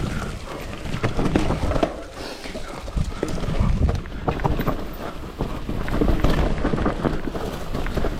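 Mountain bike descending a rough trail: tyres and frame clattering over roots and rocks in quick irregular knocks, over a constant low rumble of wind on the microphone.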